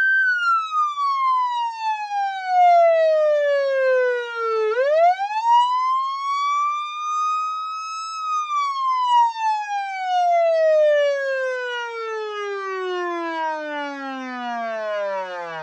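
Police car siren wailing as a countdown timer's end alarm, which signals that the time is up. It makes one slow fall in pitch, climbs back up about four and a half seconds in, then slides slowly down to a low pitch as it winds down near the end.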